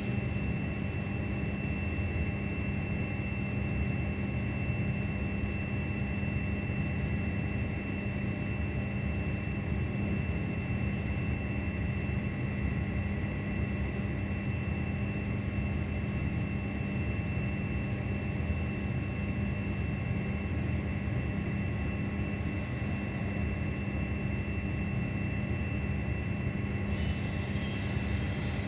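Steady low roar of a heavy downpour, with a faint, steady high-pitched whine under it.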